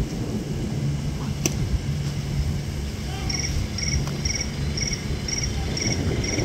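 Wind rumbling on the microphone, with a single sharp pop about a second and a half in. From about three seconds in, a high trilled chirp repeats about twice a second.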